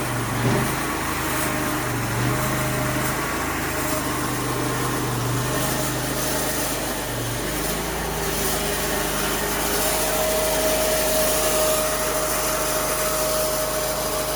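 Sawmill running under its engine as the saw cuts a log down to a beam, a steady machine sound. The low engine note changes about halfway through, and a steady whine comes in near the end.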